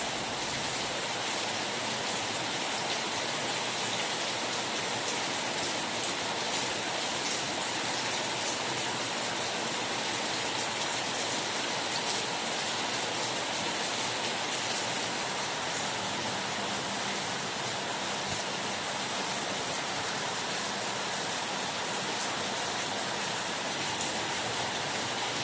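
Steady rain falling, a continuous even hiss with faint scattered drop ticks.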